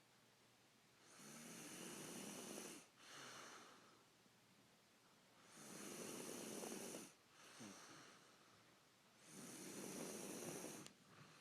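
A man snoring in his sleep: three rasping snores about four seconds apart, each a long drawn-in snore followed by a shorter, softer breath out.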